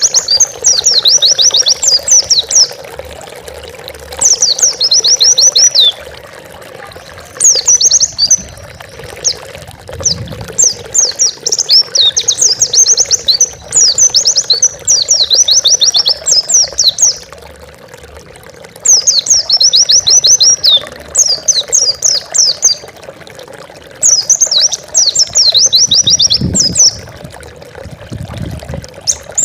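White-eye (pleci) singing loudly in repeated phrases, each a rapid run of high chattering notes lasting one to two seconds, with short pauses between them. A steady hiss runs underneath.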